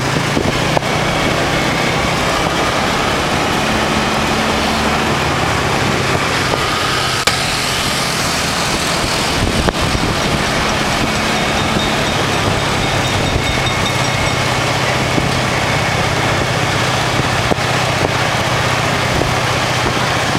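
Small motorbike engine running steadily while riding, under a constant rush of wind and road noise.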